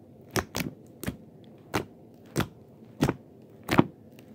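Fingers poking a blue slime with foam beads in it, making a short sharp pop or click with each poke, about seven in a row at a fairly even pace.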